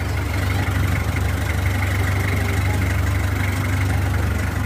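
Outrigger fishing boat's engine running steadily, a constant low hum with a thin steady whine above it.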